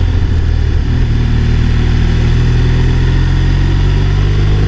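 BMW R1200RS flat-twin (boxer) motorcycle engine running at a steady speed while riding, a constant low hum with an even rush of wind and road noise over it.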